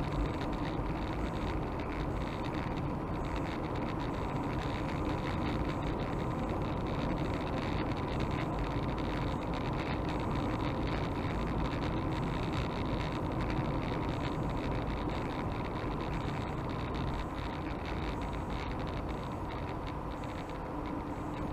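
Steady engine and tyre noise of a car cruising along a sealed road, heard from inside the cabin.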